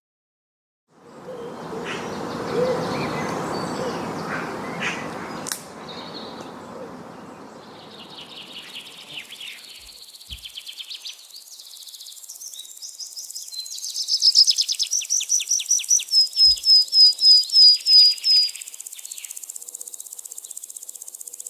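Background noise for the first few seconds, then a small songbird singing: quick high chirps that build to a run of about a dozen evenly repeated high notes, the loudest part.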